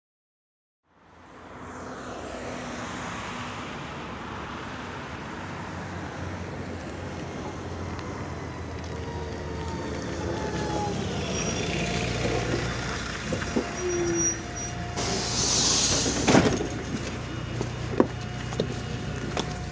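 Street traffic noise with an articulated MAZ-105 city bus pulling in and idling with a low engine hum. About 15 seconds in there is a loud hiss of compressed air lasting a second or so. A few sharp knocks follow as passengers climb the bus steps.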